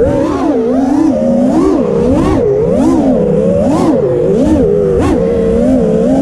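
Brushless motors and 5-inch propellers of an FPV racing quadcopter whining loudly, the pitch swooping up and down every half second or so as the throttle is punched and chopped through fast manoeuvres, with a rough rumble of wind and prop wash underneath.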